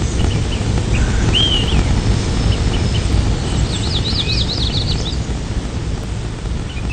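Outdoor ambience: a steady low rumble of wind-like noise with small birds chirping over it, one short rising-and-falling call about a second and a half in and a quick run of up-and-down chirps around four seconds in.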